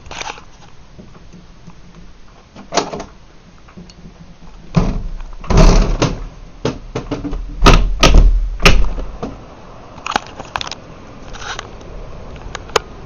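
A series of loud, irregular knocks and bangs, thickest between about five and nine seconds in, with a heavy low rumble under the loudest of them.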